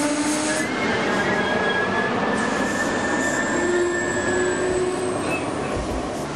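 Passenger train running along the station track, a steady rumble of wheels with thin, high squeals from the wheels on the rails coming and going, easing off near the end.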